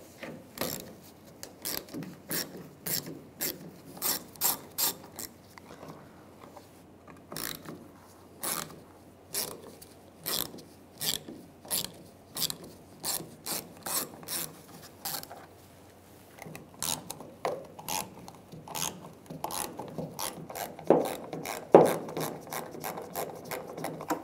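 Socket ratchet clicking in short runs as a 7mm socket backs out small bolts on a fuel filler neck, with a couple of louder knocks near the end.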